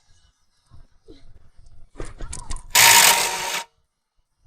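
Impact wrench run in one loud burst of just under a second, loosening a wheel's lug nuts, after a few quick clicks as the socket is fitted.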